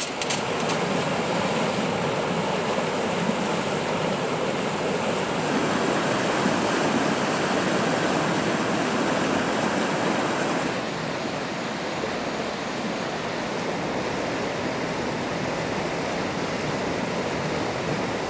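Fast-flowing canal water rushing steadily, a little quieter from about eleven seconds in.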